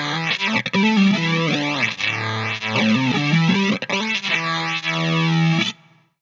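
Distorted electric guitar played through a Chase Bliss Spectre analog through-zero flanger, slow jet-like sweeps moving up and down through the held notes. The playing stops abruptly near the end.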